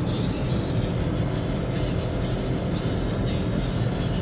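Steady road, tyre and wind noise inside a car cabin at motorway speed, about 150 km/h.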